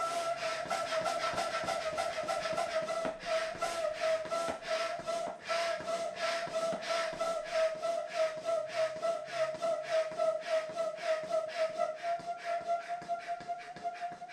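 Hand-operated barrel air pump being worked with rapid strokes, about four a second, each stroke a rush of air. A steady high whistling squeal runs through it: the pump is very noisy, "crying" as it inflates a float-tube air bladder.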